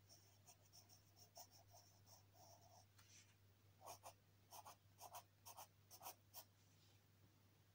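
Faint scratching of a graphite pencil sketching on paper: soft, short strokes at first, then a run of sharper, quicker strokes about two a second from about four seconds in.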